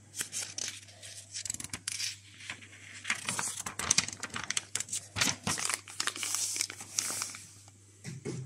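Sheets of an old paper instruction booklet rustling and crinkling as hands handle them, a dense run of sharp crackles that stops near the end.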